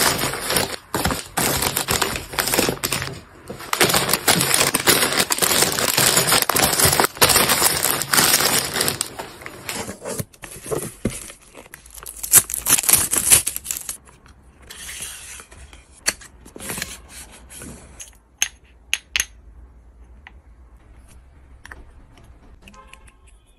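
Plastic packaging crinkling and rustling with clicks and light knocks as groceries are unpacked for the fridge. Dense crinkling for about the first ten seconds, then sparser taps and a few sharp knocks, growing quieter.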